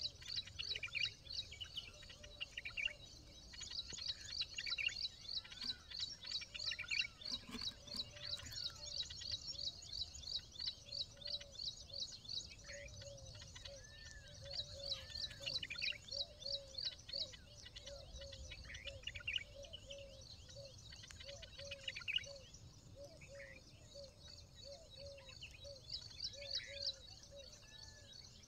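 Birds chirping: a long run of rapid high chirps, about four to five a second, with a slower series of low soft notes through the middle. No loud peacock calls.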